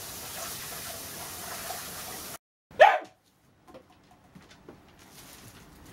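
A miniature dachshund barks once, short and sharp, about three seconds in: its demanding bark for dinner while the meal is being prepared.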